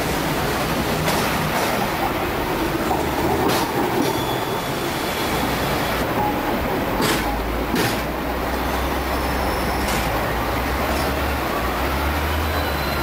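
Hong Kong double-decker electric tram rolling along street track: a steady rumble of wheels on rail, with a few sharp clicks over the rail joints and a faint high wheel squeal.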